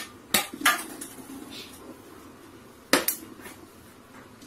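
Three sharp knocks of a light object against a hard shelf top: two close together about half a second in, and one more near the three-second mark.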